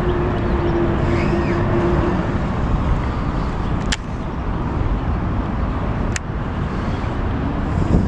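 Steady rumble of road traffic, with a steady tone during the first two seconds and two sharp clicks, about four seconds in and again two seconds later.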